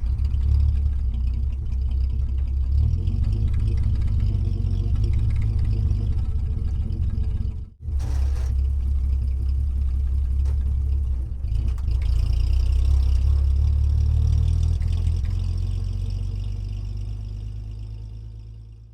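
Heavy construction vehicle engine running steadily with a deep low rumble. It breaks off abruptly about eight seconds in, resumes at once, and fades away near the end.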